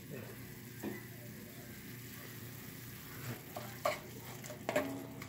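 Onions and stock simmering with a light sizzle in a cast-iron skillet as the sauce reduces, with a few short scrapes of a wooden spatula stirring, mostly in the second half.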